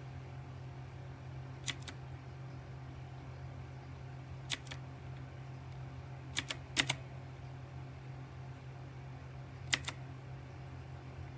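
Mechanical keyboard keys pressed one at a time, a handful of sharp clicks each paired with a second, softer click as the key comes back up. A steady low hum lies underneath.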